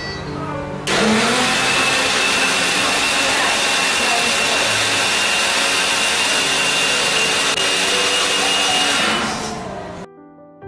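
Electric juicer's motor switched on and running at speed, a loud steady whir with a thin high whine, then switched off and spinning down over about a second near the end.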